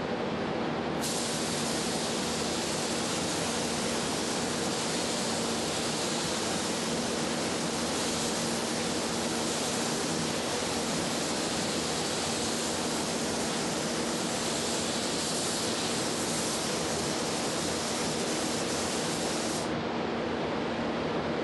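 Spray gun hissing steadily as it sprays on a coat of ArmorCoat protective coating, with a steady low hum underneath. The hiss's sharp upper edge comes in about a second in and drops away near the end, leaving a softer rush.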